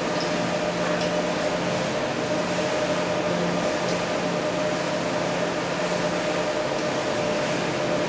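Steady hum and hiss of a machine's cooling fan, with a low drone and a higher steady tone under it, and a few faint ticks.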